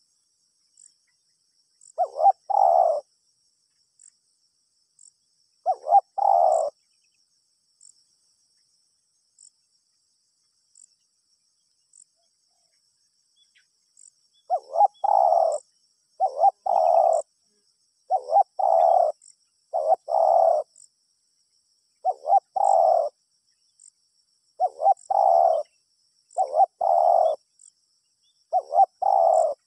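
Spotted dove (tekukur) cooing in repeated short phrases, each a quick note followed by a longer coo. Three phrases come, then a pause of several seconds, then a steady run about every two seconds. Faint insect ticking and buzzing sounds high in the background.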